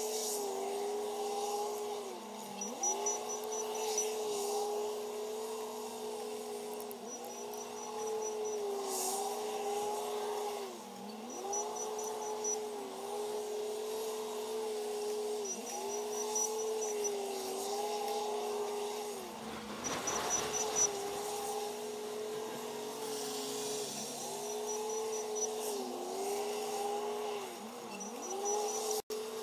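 Looped background music: a short pitched tune repeating about every four seconds over a steady drone, with a brief noisy rush about twenty seconds in.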